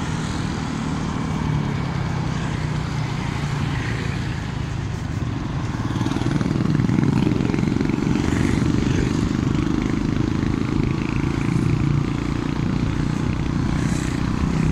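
Motorcycle running on the road: a steady low engine hum under road noise, getting louder about six seconds in.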